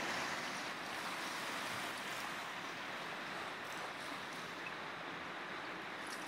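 River running with broken ice floes at the spring breakup: a steady rushing hiss of water and moving ice.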